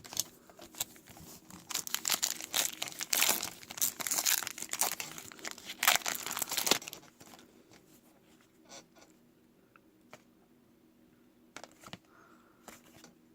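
Foil wrapper of a trading card pack crinkling and tearing as it is ripped open, a dense crackling for about five seconds, then a few light rustles and clicks.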